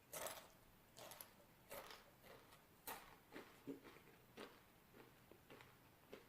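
Near silence with a few faint, scattered clicks and crackles, about eight short sounds spread irregularly over several seconds.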